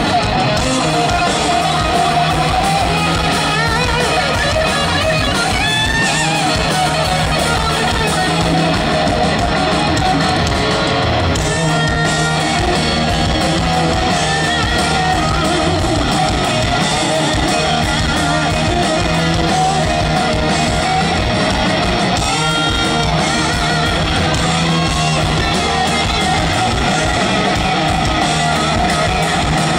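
Live hard-rock band playing an instrumental passage with no singing, electric guitar to the fore, loud and steady.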